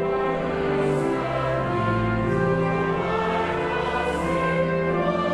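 A choir singing slow, sustained chords, the notes held and changing about once a second.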